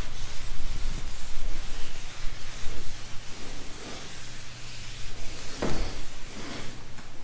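Microfiber towel wiping back and forth across a damp matte car roof, picked up close by a camera resting on the same panel: repeated cloth swishes over a low rumble, with one dull knock near the end.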